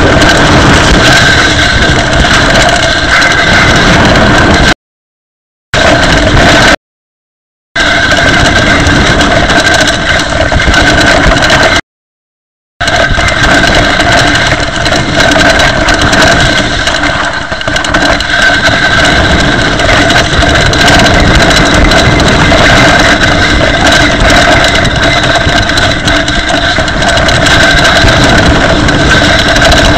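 Mountain bike ridden over a rough forest trail: loud, constant grinding and rattling, with grit grinding between the disc brake pads and rotors, the wear that destroyed the rear pads. The sound cuts out completely three times for about a second.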